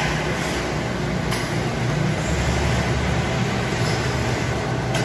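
Delivery truck engine idling: a steady low rumble.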